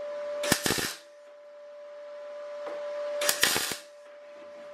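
MIG welder laying two tack welds on a butt joint in mild steel sheet: two short bursts of arc crackle, each under half a second, about three seconds apart. A steady hum runs between them.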